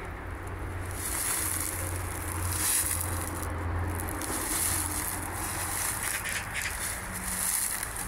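Steady outdoor background noise: a low hum with a rushing hiss over it that grows about a second in.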